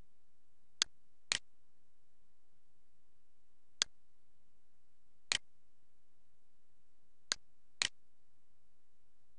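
Six computer mouse clicks: a pair half a second apart about a second in, single clicks near four and five seconds, and another pair near the end.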